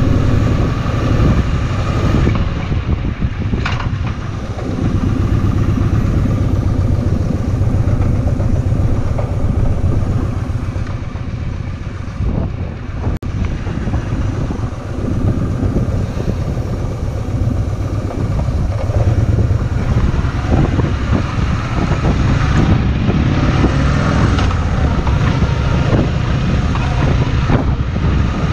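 Kawasaki VN2000's big V-twin engine running steadily while the motorcycle is ridden, a continuous low engine note with road noise over it.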